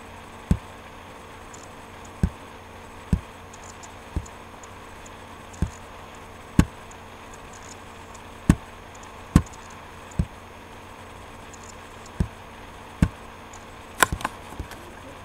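Computer mouse clicking: about a dozen single sharp clicks at irregular intervals, with a quick run of three or four near the end, over a steady low hum.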